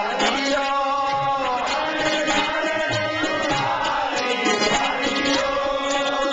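Sikh kirtan: men singing a hymn together to tabla and harmonium accompaniment.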